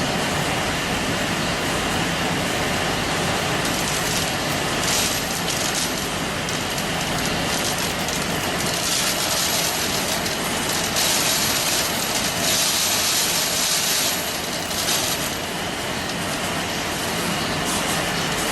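Mesh belt heat-treatment furnace line running: a steady loud mechanical rumble under a broad hiss. The hiss swells briefly about five seconds in and again for several seconds in the middle.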